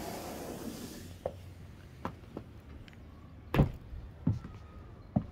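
Glazed door onto a roof terrace being opened: a short hiss over the first second as it swings open, then a series of sharp knocks and clicks, the loudest about three and a half seconds in.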